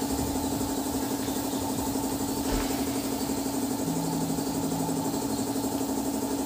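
A motor running steadily with a constant, fluttering hum.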